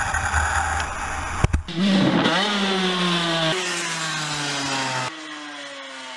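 Dirt bike engine running at high revs, its note falling steadily in pitch as it winds down while the bike is airborne. It is heard in several short takes, each gliding downward. The first second and a half is mostly a rushing noise, ended by a sharp click.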